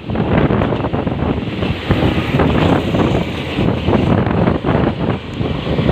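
Wind buffeting the microphone in gusts, over a steady rumble of road traffic.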